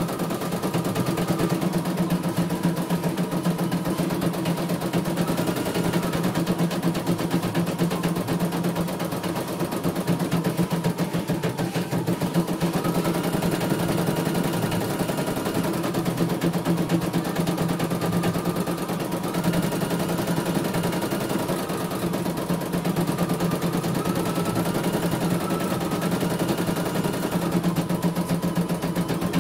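CNY E900 computerised embroidery machine stitching: a rapid, steady clatter of the needle over a low motor hum, with a brief rising and falling whine now and then.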